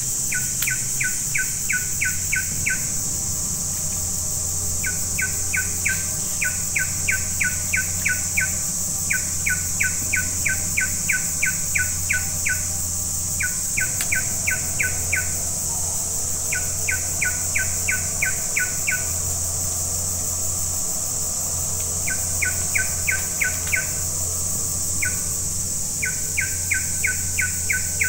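An animal calling in repeated runs of short, evenly spaced chirps, about five a second, each run lasting two to four seconds with short pauses between. A steady high insect drone runs underneath.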